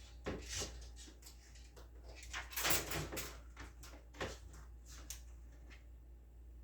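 Scattered light knocks and clicks, with a louder rushing scrape about two and a half seconds in.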